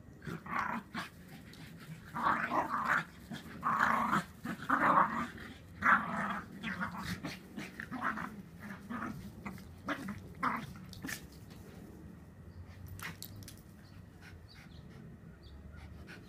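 Small dogs growling in rough play during a chase, in a string of loud gruff bursts that die away after about ten seconds, leaving only faint scattered ticks.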